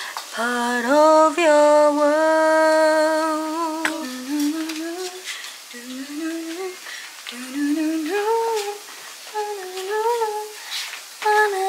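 A woman's voice humming a wordless tune: one long held note for the first few seconds, then short rising and falling phrases.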